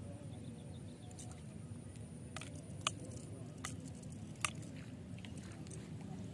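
Steady low background noise, broken by a handful of sharp clicks between about two and a half and four and a half seconds in; the clicks about three and four and a half seconds in are the loudest.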